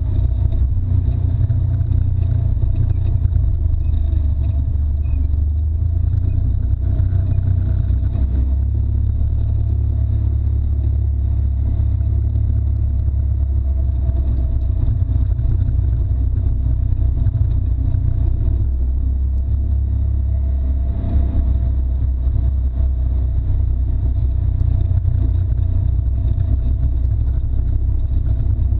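Can-Am Maverick X3 side-by-side's turbocharged three-cylinder engine running steadily as it drives along a dirt trail, a low, even drone.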